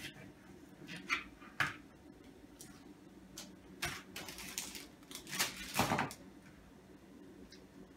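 Kitchen handling sounds: a few sharp clicks and knocks of a knife and a foil-wrapped cream cheese block on a plastic cutting board, with a louder, longer clatter about five and a half seconds in.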